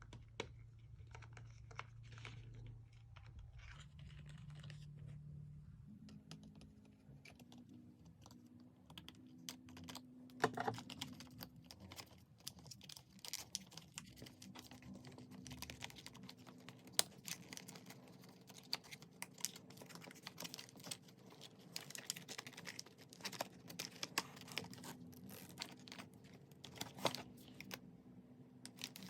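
Irregular light clicks and taps of hand tools and small plastic and metal steering-wheel parts being handled and unscrewed, over a faint steady hum.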